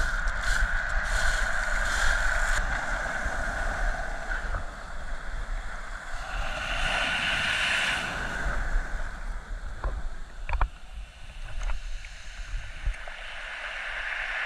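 Ocean surf foaming and washing up the shore, swelling and easing, with wind on the microphone. Several short, sharp knocks come in the second half.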